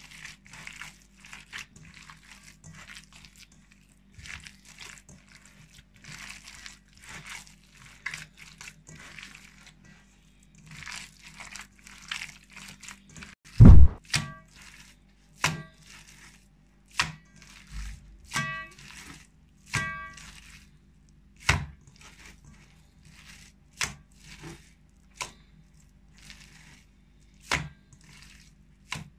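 Hands kneading minced chicken and beef with egg and onion in an enamel bowl, a soft wet squelching. About halfway through, the mince is slapped down hard into the bowl: one loud thud first, then a slap about every second and a half. The enamel bowl rings with each slap.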